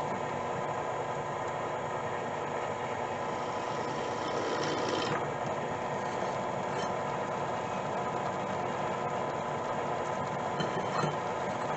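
Machine-driven drill bit cutting into a metal flange, lubricated with oil: a steady motor hum with a cutting rasp, even in level throughout.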